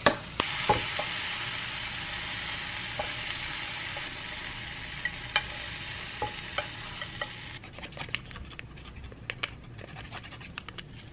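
Mushrooms sizzling in a hot frying pan, with a few sharp clicks of chopsticks against the pan. About seven and a half seconds in, the sizzling cuts off and only scattered light clicks remain.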